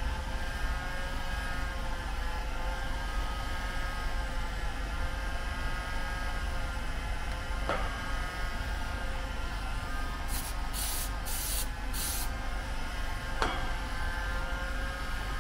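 Steady machine drone with a constant whine over a low hum. Two sharp clicks, and about ten seconds in, four short spray hisses in quick succession.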